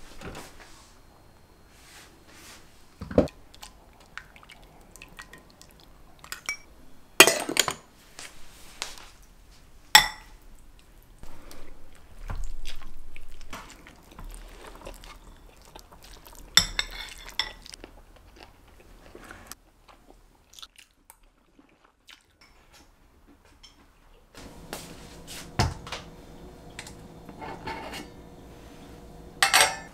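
Kitchen handling sounds: a spoon and other utensils clinking and scraping against ceramic bowls, and a pot lid lifted and set down, as scattered sharp taps and clatters. About three-quarters of the way in, a steady low hum starts underneath.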